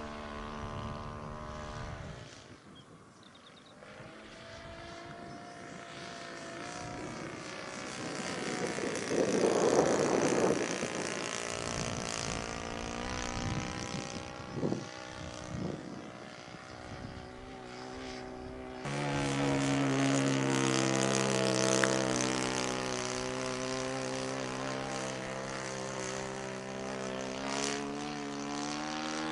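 Saito four-stroke glow engine of a radio-controlled Miles Magister model plane running in flight, with the propeller buzzing. The engine note rises and falls in pitch and loudness as the plane moves around the sky. It drops away about two seconds in, is loudest around ten seconds, and comes back in sharply at about nineteen seconds.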